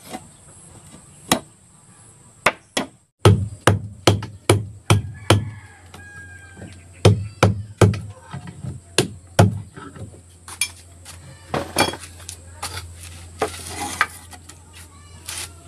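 Hammer striking a chisel into a wooden plank in a few spaced blows, then a steady run of hammer blows on wood at about two a second, easing into lighter, irregular taps near the end: hand-tool work on a wooden boat's stern.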